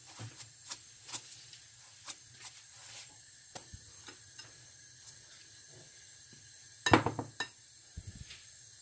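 Spatula and metal spoon stirring thick, wet grated-cassava batter in a glass bowl: soft squelching scrapes with small clicks of utensils on the glass, and a short cluster of louder clacks about seven seconds in.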